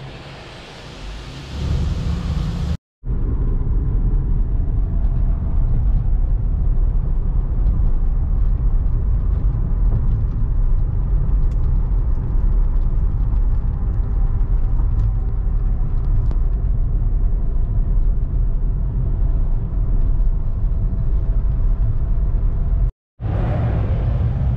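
Car driving: steady low engine and road rumble, broken by two short silent gaps where clips are joined, about three seconds in and near the end; the opening seconds carry more hiss.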